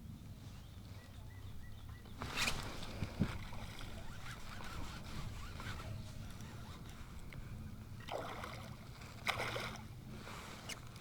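Water splashing and sloshing around a kayak, a few separate splashes over a steady low rumble; the loudest come about two and a half and nine and a half seconds in.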